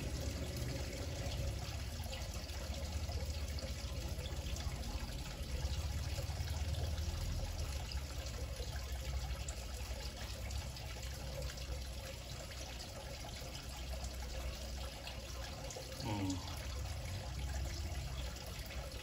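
Steady hissing noise with a low rumble underneath, and a short falling tone about sixteen seconds in.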